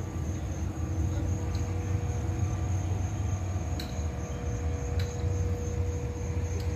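Steady low rumble of an engine running nearby, with a steady hum in it, and a faint high insect trill above. A couple of light clicks partway through.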